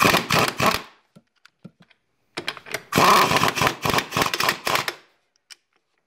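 Ingersoll Rand 2235TiMAX half-inch pneumatic impact wrench hammering on an axle nut in two bursts: a short one at the start and a longer one from about two and a half to five seconds in. It is running weak on its standard air fittings, which the owner says leave it with no power.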